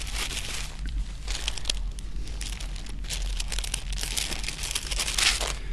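Thin Bible pages being leafed through by hand: irregular paper rustling and crinkling as pages are turned, with a louder rustle near the end. A steady low hum runs underneath.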